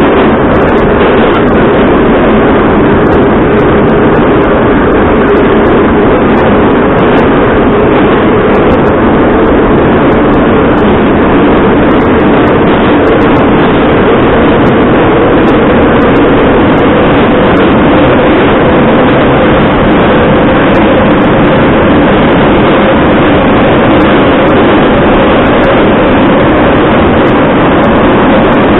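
Metro train running through a tunnel, heard from inside the passenger car: a loud, steady rumble of wheels on rails and running gear, with a faint whine that slowly rises in pitch.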